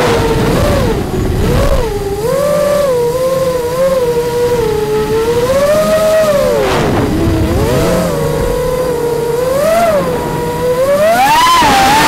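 FPV quadcopter's brushless motors and propellers whining as heard from its onboard camera, the pitch rising and falling constantly with the throttle. Near the end the pitch climbs sharply and then drops back.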